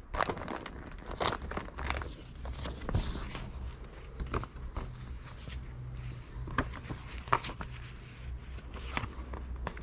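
Paper and a bag being handled and rummaged through: intermittent rustling and crinkling with scattered small clicks and taps, over a low steady hum.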